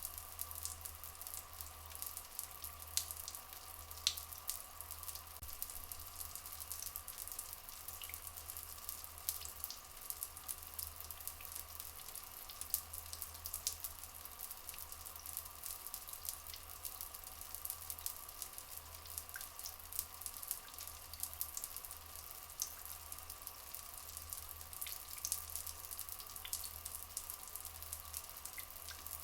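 Steady trickling, crackling flowing water with many small drips, under a faint steady tone.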